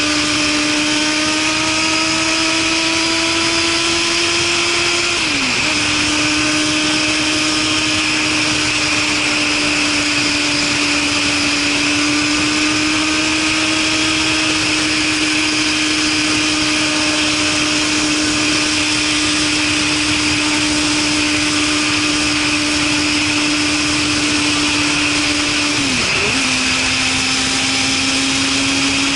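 Suzuki Katana's inline-four motorcycle engine running through a Super Combat aftermarket muffler at a steady cruise, over heavy rushing wind noise. The engine note climbs slowly and drops briefly twice, about five seconds in and near the end, each time picking up again at a lower pitch as the rider shifts up a gear.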